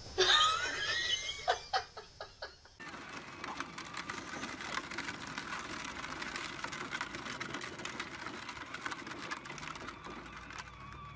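A short rising voice and a few quick bursts, then the steady electric motor hum and rattling, crunching wheels of a child's battery-powered ride-on toy jeep driving over gravel.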